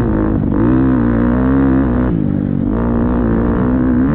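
Motocross bike engine running hard and revving up and down. The pitch drops briefly about half a second in and again for longer around two seconds in, then climbs back up each time.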